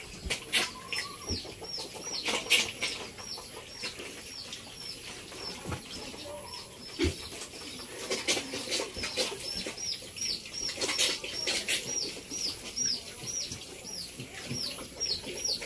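A bird chirping over and over: short, high chirps that each drop in pitch, about two to three a second, with a pause partway through. Scattered sharp knocks or flaps come in between.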